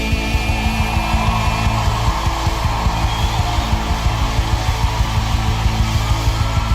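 Live worship band playing an instrumental passage with no singing: guitar chords sustained over drums keeping a steady beat.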